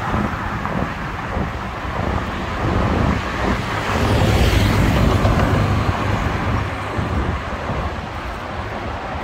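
Road traffic running on a city road, a steady rumble of passing motor vehicles. It swells loudest about four to five seconds in as one vehicle goes by close.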